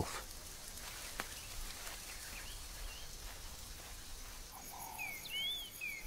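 Faint natural bush ambience: a steady hiss with a single faint click about a second in. In the last second and a half a bird gives short rising-and-falling whistled calls over a high, pulsing insect trill.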